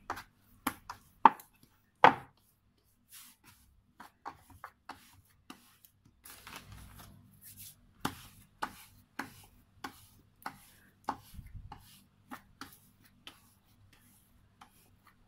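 Pao bun dough being kneaded by hand on a wooden board: a string of knocks and soft slaps as the dough is pressed down and rolled. The strongest come in the first two seconds, and later they fall about twice a second.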